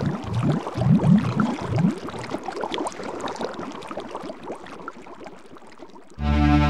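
Bubbling, gurgling water, loudest in the first couple of seconds and fading away. Steady electronic music chords come in suddenly near the end.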